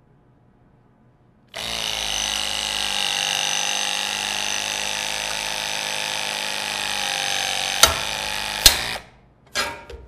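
Greenlee LS50 battery-powered hydraulic knockout punch driver running steadily for about seven seconds as it draws a slug buster punch through sheet metal. Two sharp cracks come near the end, and the driver then stops by itself as the punch comes through the material and the hole is complete.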